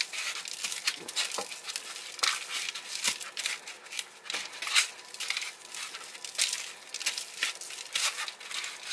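Hands pressing and rubbing a dry spice rub into raw steaks on a foam meat tray: an irregular run of small crackles and crinkles from the loose seasoning grains and the foam tray under the hands.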